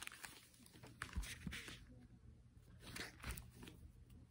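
Hardcover picture book being handled and turned around: paper and cover rustling and scraping, with a few soft thumps.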